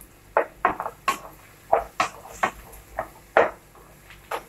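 Wooden spatula scraping and knocking against a nonstick frying pan while stirring vegetables: short, sharp strokes at an uneven pace, about two a second.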